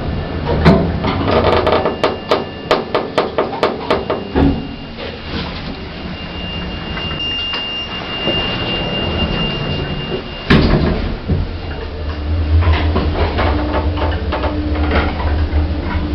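Old hospital passenger lift in operation: a quick run of sharp clicks for the first few seconds, a steady high tone that stops with a sharp bang about ten seconds in, then the lift machinery running with a low hum and a steady whine.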